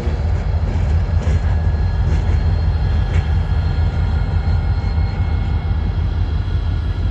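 A train rolling past close by: a heavy, steady low rumble of wheels on rail, with a few faint clicks.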